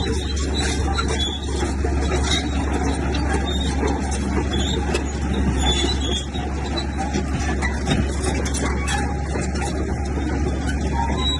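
Heavy diesel bulldozer running steadily under load, with a constant low drone and frequent short metallic clanks and squeaks on top.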